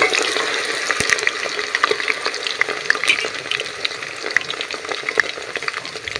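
Hot oil sizzling and crackling in a steel pan as a tadka of cumin, fenugreek seeds, onion and potato fries, gradually getting quieter. One sharp click about a second in.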